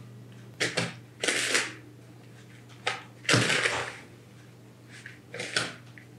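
Kitchen handling sounds of a teaspoon and bowl as ground cardamom goes into the walnut-and-sugar baklava filling: a few sharp clicks and two longer scraping rustles, with more clicks near the end.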